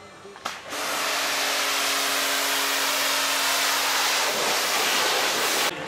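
Pressure washer spraying water onto a mountain bike frame: a click, then a loud steady hiss that cuts off suddenly near the end, with a faint steady hum under it for most of its length.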